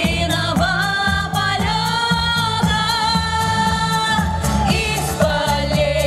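Two women singing a Russian pop song into microphones over instrumental accompaniment with a steady bass beat. About a second and a half in they hold one long note for some two and a half seconds, then the line moves on.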